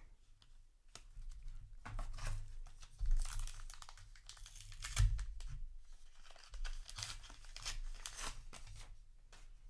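Trading card booster pack wrapper being crinkled and torn, with crackly rustling throughout and two dull bumps about three and five seconds in.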